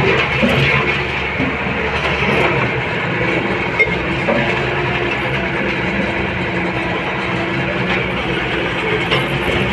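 Heavy diesel engine of a road roller or tractor running steadily, a constant engine drone with a rattly mechanical noise over it.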